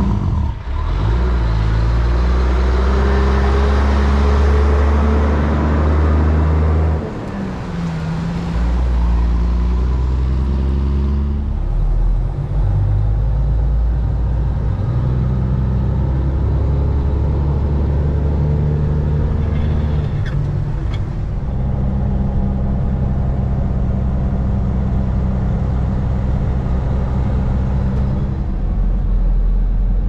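Semi truck's diesel engine running steadily as the grain truck drives along a gravel road.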